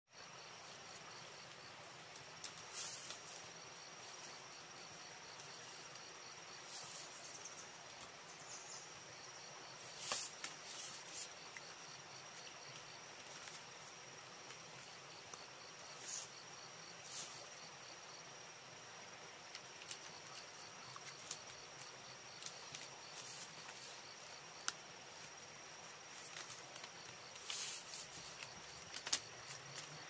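Insects calling: a steady high-pitched buzz with a pulsing trill that comes and goes, and a few short sharp clicks or rustles scattered through.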